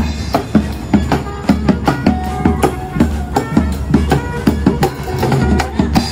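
Street drummer playing a drum kit: a steady beat of drum and cymbal hits, several a second.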